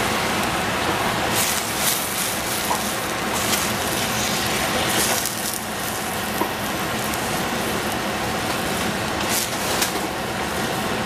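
Food frying in a hot pan: a steady sizzling hiss with scattered crackles and pops.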